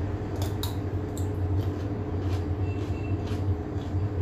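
A steady low mechanical hum, with scattered light clicks and rustles of dishes and food packaging being handled.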